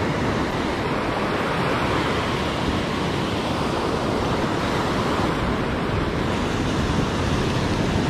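Ocean surf breaking and washing up a sand beach, a steady rushing wash, with wind rumbling across the microphone.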